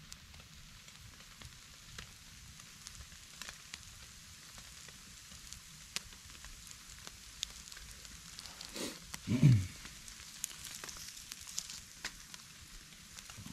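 Campfire embers crackling and sizzling under whole brown trout roasting in the smoke, with scattered sharp pops. About nine seconds in, a brief loud low sound cuts in.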